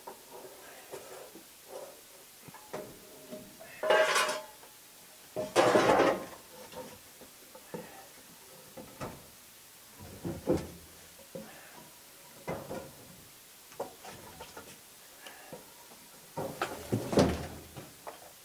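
Irregular metallic clanks and knocks from crew working in a steam locomotive's cab beside the lit firebox, with louder, longer clattering about four and six seconds in and again near the end.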